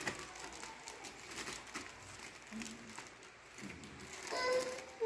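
Thin plastic bags rustling and crinkling with faint light clicks as dried herbal medicine pieces are packed into them by hand. Near the end a brief pitched sound, the loudest moment, cuts in.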